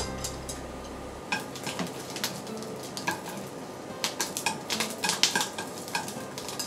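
Wooden chopsticks clicking and tapping against a frying pan as small green peppers are turned, over a light sizzle of the peppers searing. The taps come thick and fast in the second half.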